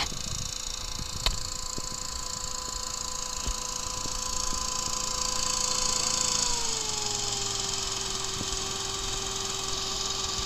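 Small hovercraft's engine and ducted pusher propeller running steadily with a rush of air as the craft glides over snow; about two-thirds of the way in the engine note drops to a lower steady pitch as it throttles back. A sharp click about a second in.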